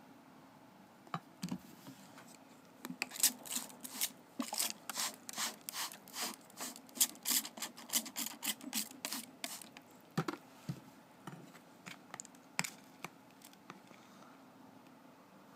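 Hand-pumped trigger spray bottle misting into a larva's fungus bottle, in a quick run of short sprays about two a second for several seconds. A few scattered clicks come before and after.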